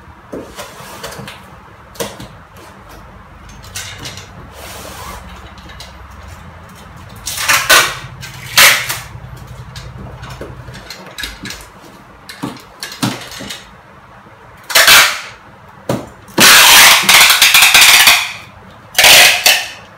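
Packing tape being pulled off its roll in about five loud strips, the longest over a second near the end, as a cardboard carton is sealed. Cardboard rustles in between.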